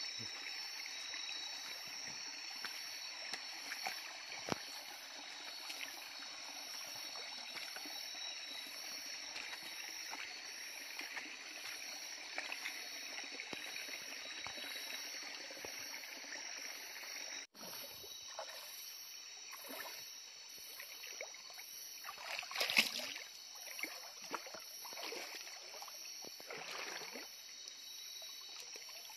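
Shallow stream water trickling while a person wades through it, with irregular splashes of feet in the water, thickest and loudest in the second half.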